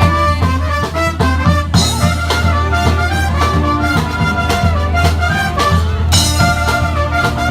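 Brass band playing: several horns over a steady low bass line, with drum hits.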